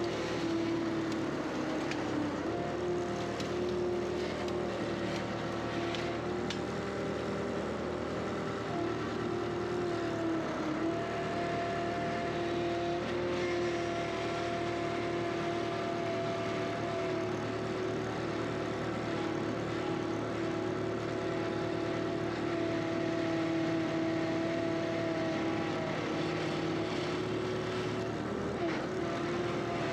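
Skid steer engine running steadily, its pitch dipping briefly a few times, about ten seconds in and again near the end.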